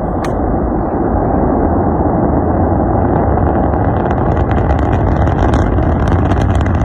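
Rocket engine noise at launch: a loud, deep, steady rumble, with crackling that builds from about three seconds in. A single sharp click sounds just after the start.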